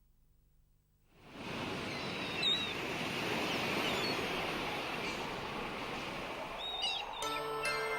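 A steady rushing noise like surf fades in about a second in, with a few short high cries over it. Near the end, music with clear pitched notes comes in: the song's intro.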